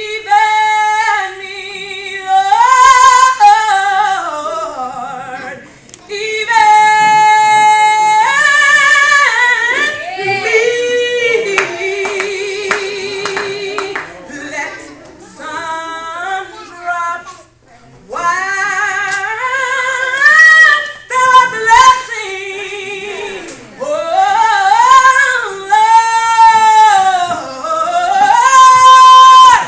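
A woman singing a gospel song solo, unaccompanied, in long held phrases with short breaks between them. About halfway through she holds one long note with vibrato.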